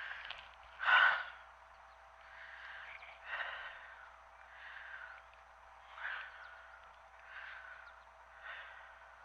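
A hiker's heavy breathing from the exertion of walking, close to the microphone: a steady series of breaths about one a second, the loudest about a second in.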